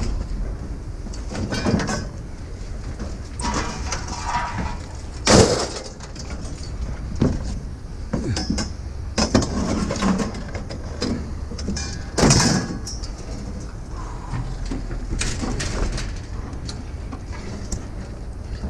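Scrap metal being unloaded by hand off a wooden trailer deck: pieces scraping across the boards and clanking as they are thrown onto the ground. Two clanks, about seven seconds apart, are much louder than the rest.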